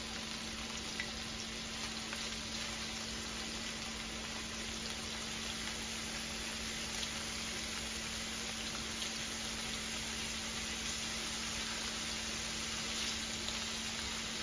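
Swordfish cubes sizzling gently in a little olive oil in a non-stick frying pan over a low gas flame, with a few faint taps as more pieces are set into the pan with chopsticks.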